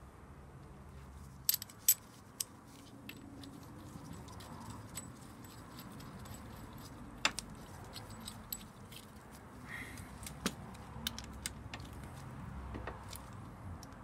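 Light metallic clicks and clinks, irregularly spaced, of a steel bolt and a socket on an extension being handled and set onto a motorcycle's front sprocket as the new sprocket bolt is fitted.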